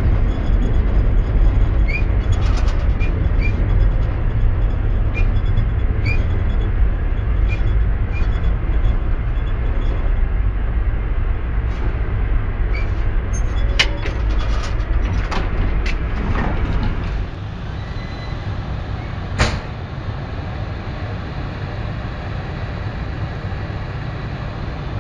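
Tram running along the track, heard from inside the cab: a steady low noise with short squeaks and sharp clicks from the running gear. About 17 seconds in it gives way to a quieter steady noise, with one sharp knock a couple of seconds later.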